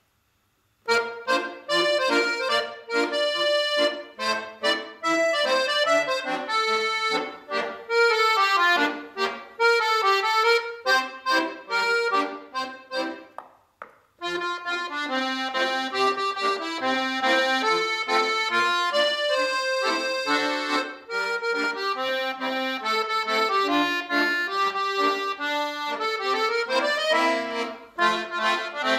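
Dino Baffetti piano accordion playing a conga tune, starting about a second in with short, separate notes over bass chords. After a brief break about halfway it goes on in fuller held chords, with a quick upward run near the end.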